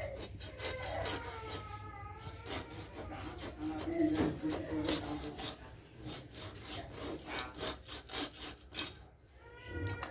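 A hilsa fish scraped against a boti blade to strip its scales: a quick run of rasping strokes, about three a second, starting a couple of seconds in and stopping shortly before the end.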